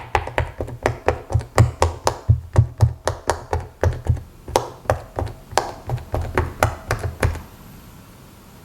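Silicone Pop It fidget toy bubbles being pressed in one after another: a quick, even run of soft pops, about three or four a second, that stops about seven seconds in.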